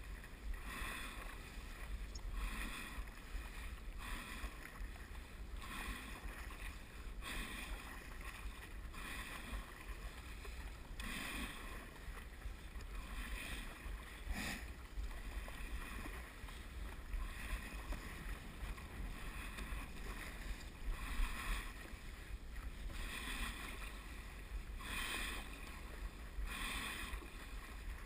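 Stand-up paddle strokes: the paddle blade dipping and pulling through calm water, a splash about every two seconds, with water washing along the board. A steady low rumble runs underneath.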